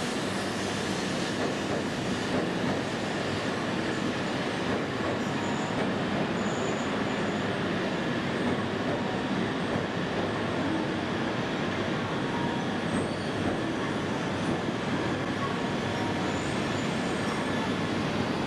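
Coupled E2 and E3 series Shinkansen train rolling slowly into the platform: a steady rumble of wheels and running gear, with faint squeal and a faint high whine from about ten seconds in.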